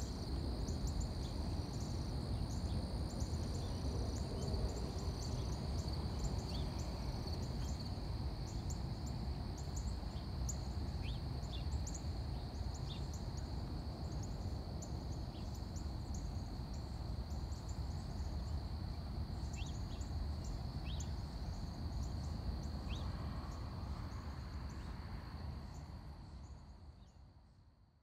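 Outdoor ambience: insects droning steadily with scattered short bird chirps over a low rumble, fading out near the end.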